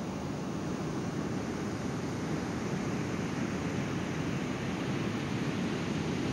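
Steady rush of breaking ocean surf, with wind noise on the camera microphone.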